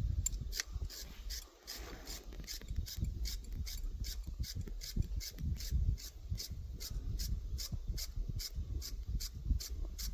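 Rhythmic scraping strokes, about three a second, as metal threads on a solar bore pump part are scrubbed by hand to clear out old thread-locking glue.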